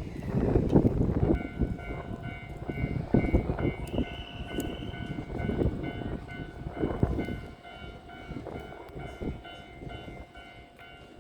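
Electric train moving slowly through a station: wheels rumbling and clattering on the rails, with a steady high electric whine from its drive equipment.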